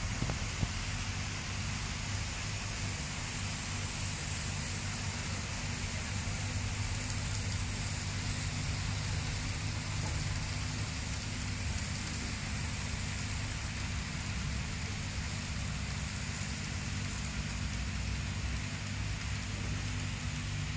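Kato N scale model trains running on the track: a steady whir of small motors and rolling wheels over a steady low hum.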